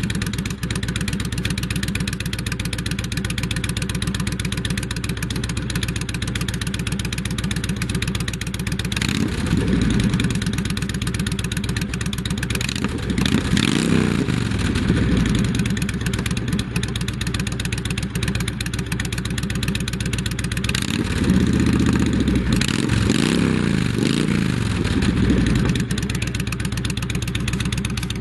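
Honda VTX 1300R's V-twin engine through Cobra Speedster Longs aftermarket exhaust pipes, idling just after starting. The throttle is blipped once about ten seconds in, twice around fourteen seconds, and three times in quick succession later on, each rev rising and falling back to idle.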